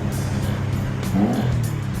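Porsche 986 Boxster flat-six engine running at low revs, with a short throttle blip that lifts the pitch briefly a little over a second in before it settles back.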